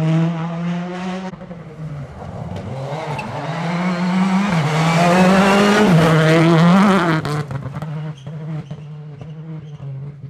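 Citroën C3 Rally2 car passing at speed, its turbocharged four-cylinder engine rising in pitch and dropping sharply at quick gear changes, loudest as it goes by and then fading away. About a second in, the end of another rally car's pass cuts off.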